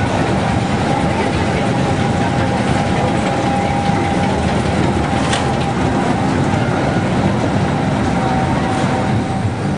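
Carnival ride machinery running: a Tilt-A-Whirl's cars rolling and clattering around their track with a steady rumble and a faint hum, and one short click about halfway through.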